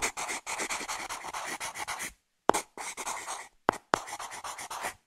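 Pencil scratching on paper in quick writing strokes. The strokes come in several runs broken by short pauses.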